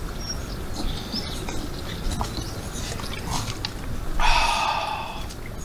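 Dogs drinking water, lapping and snuffling, with wind rumbling on the microphone. A louder breathy sound comes about four seconds in and lasts about a second.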